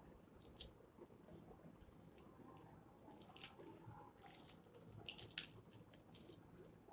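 Faint, scattered crinkling and crackling of a small plastic candy-bar wrapper being picked open with the fingers, thickest from about three to five and a half seconds in.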